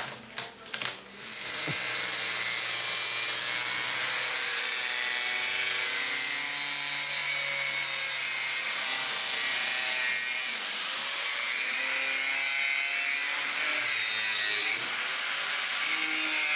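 Angle grinder with a cutting disc trimming through the cured fibreglass edge of a moulding: a loud, steady grinding hiss that starts about a second and a half in, after a few light taps, and runs until near the end.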